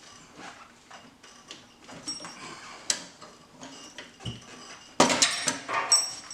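Socket, adapter and breaker bar clinking and rattling against metal as they are fitted onto a cylinder-head bolt, with a louder clatter of ringing metal about five seconds in; the socket is not seating straight on the bolt.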